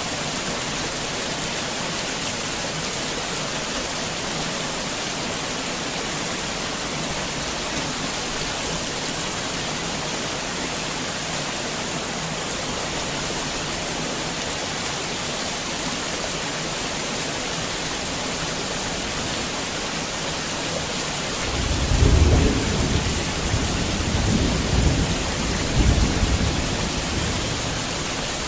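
Heavy rain falling steadily as an even hiss; about three-quarters of the way through a roll of thunder comes in low and rumbling, swelling a few times before dying away near the end.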